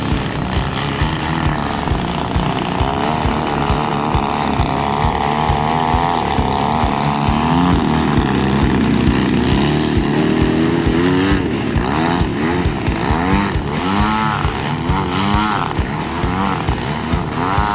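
Engine and propeller of a 91-inch Extreme Flight Laser EXP, a large-scale radio-controlled aerobatic plane, flying 3D manoeuvres. The engine note swings up and down with the throttle, and in the second half it comes in quick, repeated rising surges.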